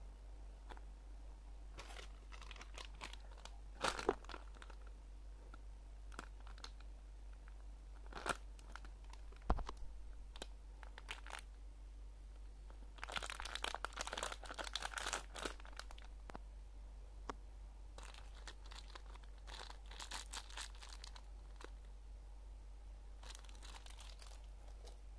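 Clear plastic packaging crinkling and rustling in hands in irregular bursts, busiest about halfway through, as a bagged squishy toy is handled and unwrapped.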